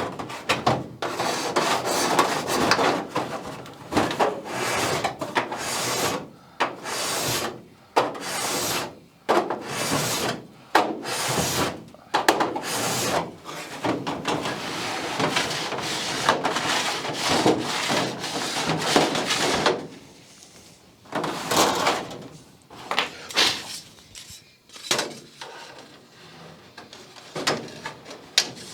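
Hand work on an aluminum wing tip skin: a long run of rasping, rubbing strokes about one a second, thinning out to a few scattered strokes in the last third.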